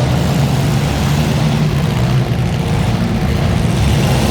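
Car engine running with a steady low drone.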